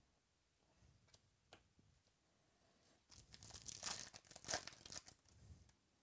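A foil pack of 2017 Topps Stadium Club baseball cards is torn open, with the wrapper crinkling and crackling from about three seconds in until near the end. A few light taps and rustles come first as the pack is picked up.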